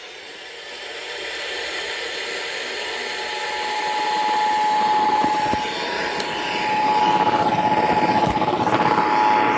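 Emergency Alert System broadcast picked up through heavy radio static: a rushing hiss grows louder, and about three and a half seconds in a steady EAS attention tone comes in beneath it and holds.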